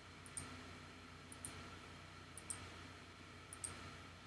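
Faint sharp clicks, mostly in quick pairs, about once a second over a low steady hum.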